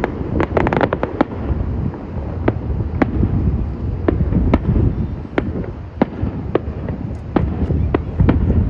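Aerial fireworks shells bursting: a quick cluster of crackling reports in the first second, then single sharp bangs about every half second to a second, over a low rumble.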